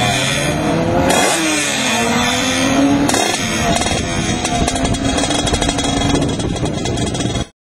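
Suzuki Hayabusa's inline-four engine at full throttle down a drag strip, its pitch climbing and dropping back at each of several upshifts. The sound cuts off suddenly near the end.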